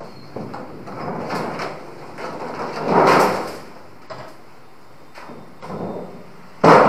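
Washing-machine tub and sheet-metal cabinet being handled during disassembly: plastic and metal scraping and rubbing as the tub is lifted out and carried off. The loudest scrape comes about three seconds in, and there is a sharp knock near the end as the cabinet shell is moved.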